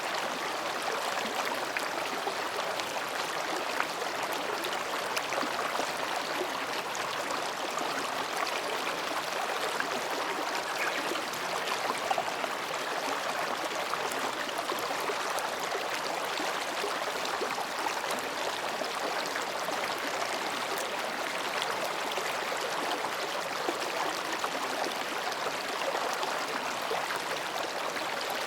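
Mountain stream flowing between rocks, a steady babbling, gurgling rush of water with no breaks.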